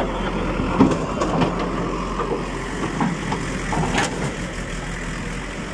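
Diesel engine of a backhoe loader running steadily, with a few short knocks as it digs up the road surface.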